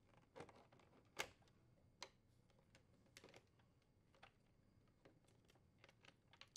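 Faint plastic clicks as wire connectors are unplugged from a refrigerator dispenser's control interface board: three clearer clicks in the first two seconds, the second the loudest, then a scatter of fainter ticks.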